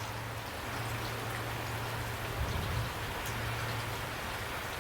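Steady rain falling, an even hiss of raindrops with a low rumble underneath.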